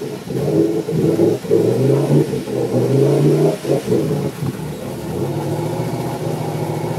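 Engine of a Suzuki Samurai-based rock crawler buggy revving hard in repeated bursts while driving through a deep mud pit. It settles to a steadier, lower run about five seconds in.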